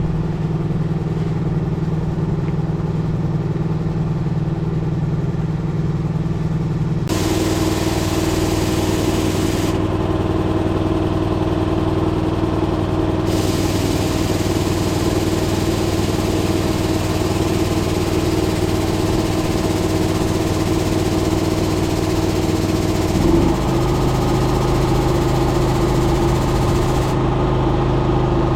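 An engine idling steadily. Its pitch shifts abruptly about seven seconds in and again near twenty-three seconds in.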